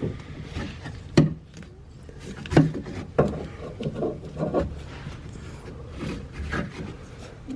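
Rubber window run channel being worked back into a car door frame: rubbing and scraping, with several sharp knocks at irregular intervals.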